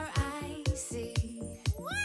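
Upbeat background music with a steady beat of about two beats a second, and a sliding tone rising near the end.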